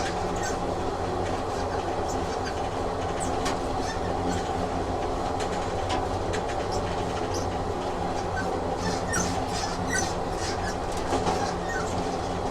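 Train running on rails: a steady rumble and hum, with scattered light clicks and brief wheel squeals.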